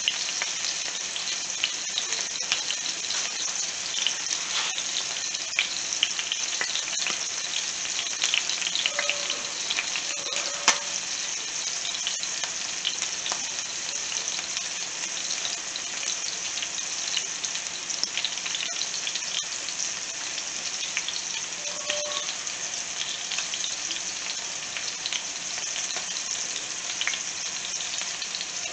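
Chunks of chicken frying in oil in a skillet: a steady sizzle with frequent small spattering crackles and one sharper pop about eleven seconds in.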